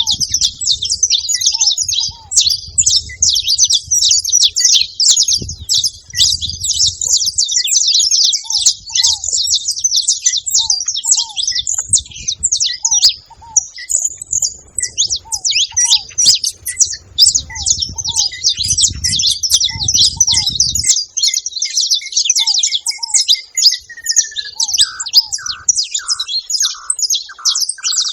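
Saffron finches chirping and chattering without pause, many high calls overlapping, with a low rumble underneath that stops about two-thirds of the way in.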